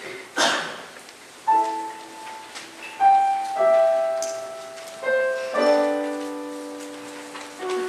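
A short scuffing noise about half a second in, then a piano plays a slow introduction: a series of notes and chords struck one after another, each left to ring and fade.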